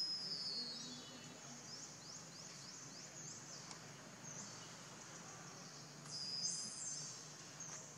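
Outdoor forest ambience: a steady high-pitched insect drone with many short, high, downward-sliding chirps. It swells louder at the start and again about six seconds in.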